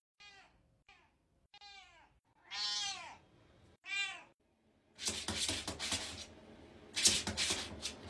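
A cat meowing about five times in short calls, the fourth the longest, followed by two louder, noisy hiss-like bursts.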